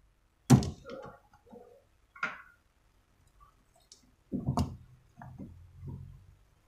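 Sharp plastic clicks and knocks from car-door wiring connectors and clips being handled and unplugged, with rustling handling noise between them. A loud click comes about half a second in, another near two seconds in, and a cluster of clicks past four seconds.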